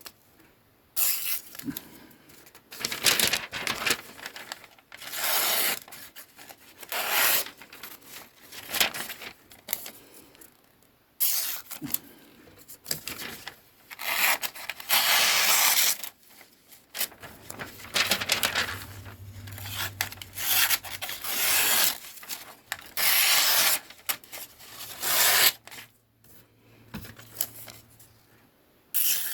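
Ozark Trail folding knife's factory edge making repeated slicing cuts, about fifteen strokes with short gaps, one near the middle long and drawn out. It is a sharpness test of the out-of-the-box edge, which the owner finds pretty sharp.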